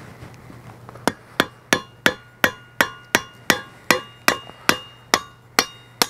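A rapid, even series of sharp strikes, about three a second, starting about a second in, each leaving a brief ringing tone, like metal being tapped with a hammer.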